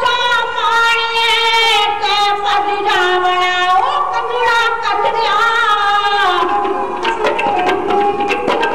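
Dhadi ballad singing: a woman sings long held notes that bend in pitch, with sarangi accompaniment. About seven seconds in the singing gives way to rapid strokes on the dhadd, the small hourglass drum.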